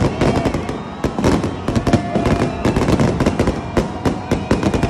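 Aerial fireworks going off in rapid, overlapping succession: a dense, irregular run of bangs and crackling pops from many shells bursting at once.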